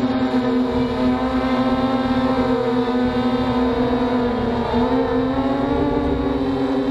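MJX Bugs 3 quadcopter's brushless motors and propellers whining steadily in flight, heard up close from a camera mounted on the drone, with a brief dip in pitch a little past the middle.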